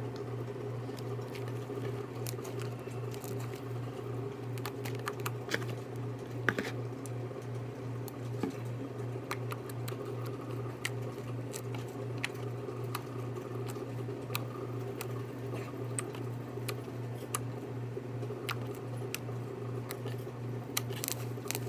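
Fluffy slime made with shaving cream, kneaded and stretched by hand, squishing with many small, irregular sticky clicks and pops, over a steady low hum.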